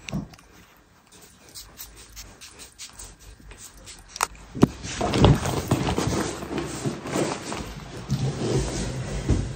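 Handling noises: a run of small clicks and taps as small items are picked up and used, then, from about halfway through, louder rustling and knocks as a handbag is lifted onto the shoulder.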